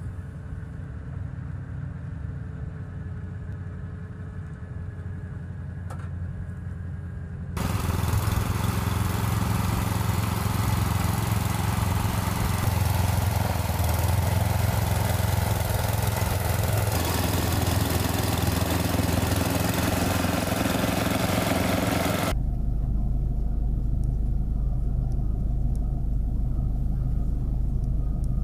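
Snowblower running, its auger churning into deep snow: a loud, steady noise that starts abruptly about seven seconds in and cuts off about twenty-two seconds in. Before it there is a faint low hum, and after it a low rumble.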